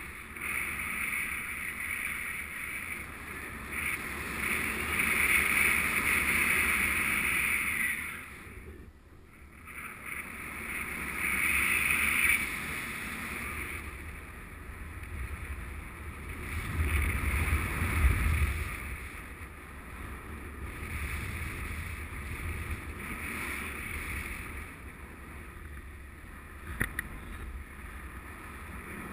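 Wind rushing over the microphone of a riser-mounted camera in paraglider flight, swelling and easing in gusts. There is a brief lull about nine seconds in.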